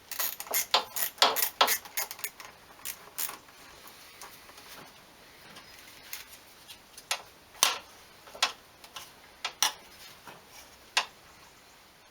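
Hose clamp on a silicone intake coupler being tightened and turned with a hand tool: a quick irregular run of sharp metallic clicks over the first few seconds, then single clicks a second or so apart.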